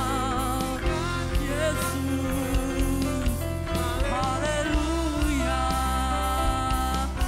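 Worship music: a band or keyboard accompaniment over a continuous bass, with a voice singing a wavering melody line.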